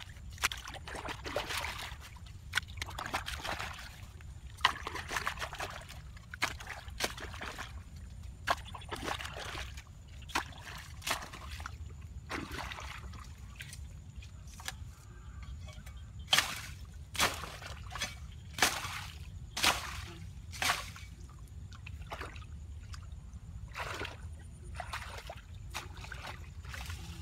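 Shallow water sloshing and trickling, broken by short splashes, with a run of louder sharp splashes about a second apart in the middle.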